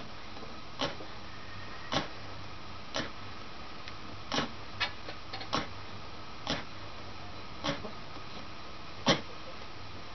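Short, sharp clicks about once a second, unevenly spaced, the loudest about nine seconds in, over a steady low hum with a faint high tone.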